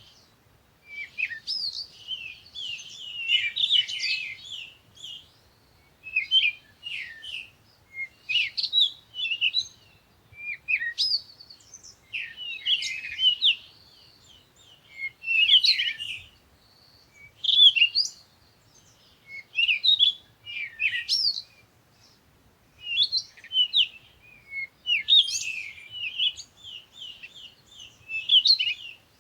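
Songbirds chirping and twittering in quick, high-pitched phrases that come every second or two with short pauses between.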